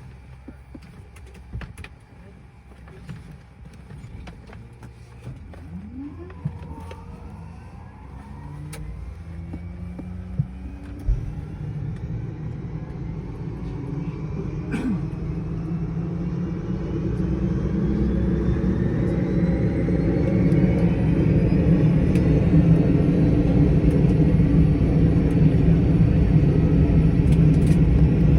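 Cessna 208 Caravan's Pratt & Whitney PT6A turboprop engine starting: a whine that rises slowly in pitch as the turbine spools up, with a low rumble setting in about eleven seconds in, the whole growing steadily louder.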